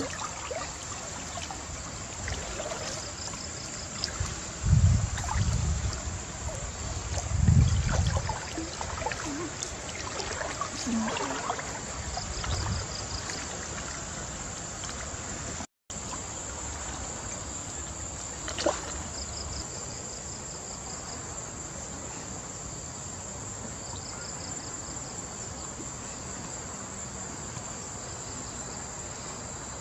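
A steady insect chorus, with water sloshing and trickling as people wade and work waist-deep in the river. A few heavy low rumbles come in the first half, and there is one sharp click after the middle.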